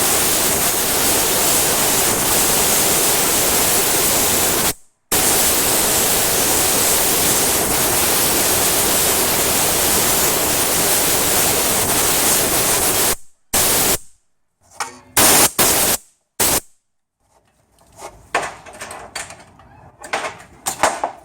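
Compressed-air blow gun blowing metal shavings out of a freshly tapped bolt thread and tap as the tap is backed out, so they don't seize the new thread. A long steady hiss, with a brief break about five seconds in, then stops at about thirteen seconds, followed by four or five short blasts and then faint clicks near the end.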